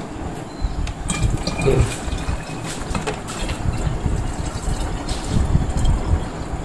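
Water pouring from a bottle into a car's coolant overflow tank, over a low steady rumble, with a couple of light knocks about one and two seconds in.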